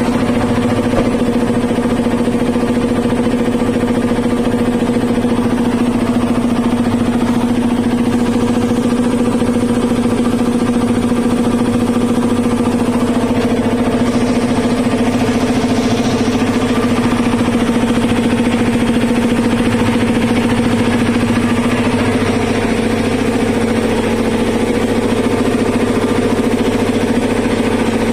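A 3 HP ELGI-model belt-driven piston air compressor, freshly serviced with new oil and a new air filter, running steadily under its electric motor as it pumps up the tank. The steady mechanical hum sags slightly in pitch and level near the end.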